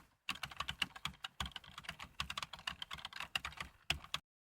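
Rapid, irregular typing on a computer keyboard, many key clicks a second, stopping abruptly a little past four seconds in.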